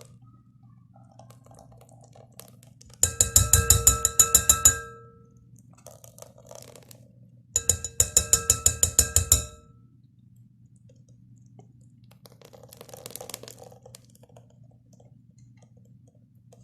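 Two runs of quick, ringing metal taps, about seven a second, each lasting nearly two seconds, from a metal utensil rapping on a metal strainer while hot lemon curd is strained. Fainter scraping sounds come between the runs.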